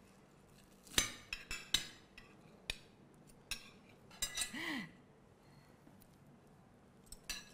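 Metal cutlery clinking and tapping against ceramic plates in a handful of separate sharp clicks, with a short murmur of a voice about four and a half seconds in.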